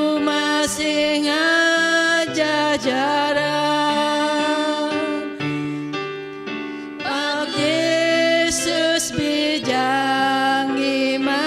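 Two women singing a gospel hymn in Bidayuh into microphones, with sustained notes over instrumental accompaniment that holds low notes beneath the voices. The singing eases briefly about six seconds in, between lines.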